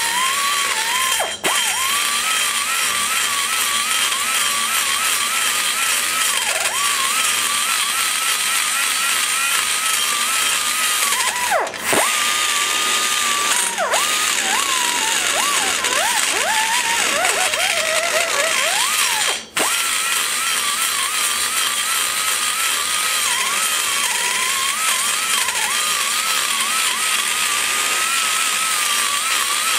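Die grinder with a large carbide burr cutting the aluminum of a cylinder head port around the valve guide, its high whine wavering and sagging in pitch as the cutter bites, with a few brief breaks.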